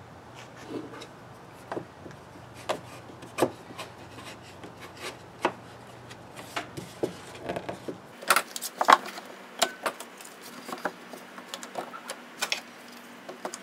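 Wooden knocks and rubbing as a glued block is pressed into a thin wooden cigar box, then a denser run of sharp clicks from about eight seconds in as one-handed bar clamps are squeezed tight on it.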